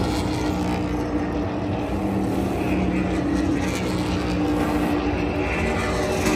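V8 engine of a NASCAR Cup stock car running on pit road during a pit stop, a loud steady drone held at one pitch.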